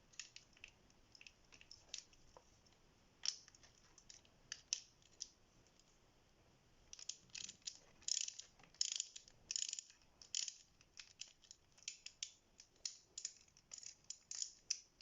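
Light metallic clicks and clinks of a hand tool and small bike parts being handled, scattered at first, then in quick irregular runs through the second half.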